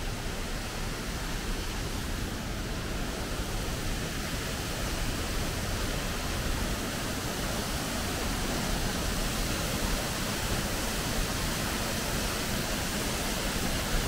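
Waterfall pouring over a rock edge: a steady rush of falling water.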